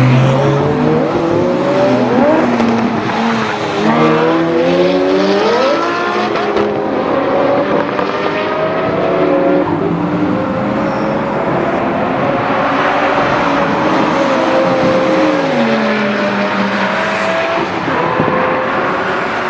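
Lamborghini Gallardo LP560-4's V10 engine and exhaust under acceleration: the pitch climbs over the first few seconds, holds high and steady, then drops about three-quarters of the way through.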